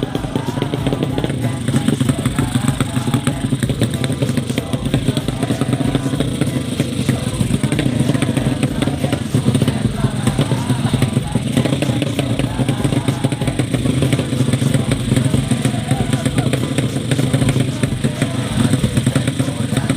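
Motorcycle engines running steadily, with voices in the background.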